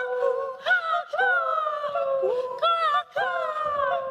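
Several voices imitating bird calls together: overlapping hooting calls, each jumping up in pitch and sliding down, repeated every half second to a second with brief gaps.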